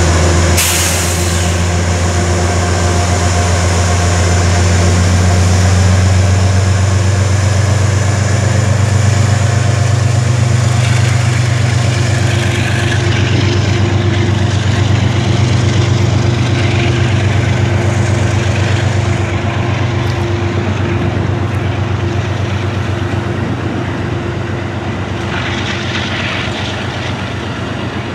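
Amtrak P32 locomotive pulling the Lake Shore Limited out of the station: a loud, steady low drone, with a short hiss of air about half a second in.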